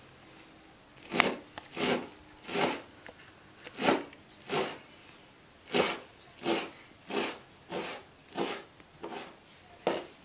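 Kitchen knife chopping a pile of fresh herb greens on a plastic cutting board: about a dozen even strokes, one every two-thirds of a second or so, starting about a second in.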